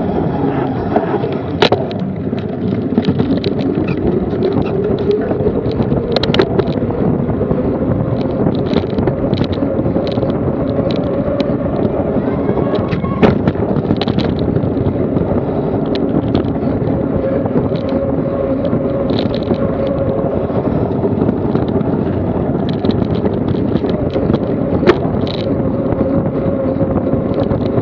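Wind rushing over the microphone of a bike-mounted action camera while a mountain bike descends a paved road at speed, with steady tyre and road noise and frequent sharp rattles and knocks from the bike over the rough surface.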